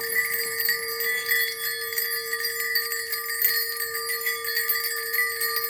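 Several bells ringing together without pause: quick jingling and repeated strikes over one steady, sustained ringing tone.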